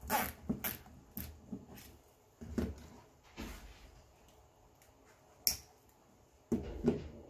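Stiff poly mesh and ribbon crinkling and rustling in short bursts as a bundle is worked onto a wreath form, then a single sharp snip of wire cutters about five and a half seconds in, followed by a duller knock with more rustling near the end.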